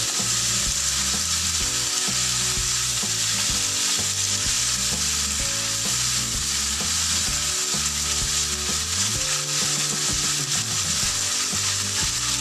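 French beans and ground pork sizzling steadily in hot oil in a nonstick frying pan, stirred and turned with a silicone spatula.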